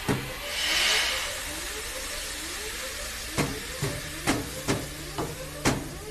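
Drama soundtrack effects: a short hiss swells and fades near the start, then about six sharp knocks come in the second half, over a faint tone that rises again and again.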